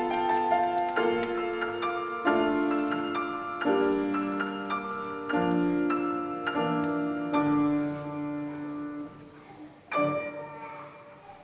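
Piano music: held chords struck every second or so, growing gradually softer, with one last quiet chord about ten seconds in that fades away.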